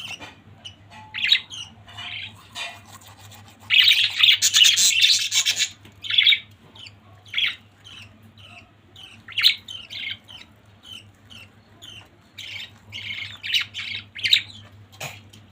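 Pet budgerigars chirping and chattering in a run of short, high calls, with a loud burst of dense chatter a few seconds in.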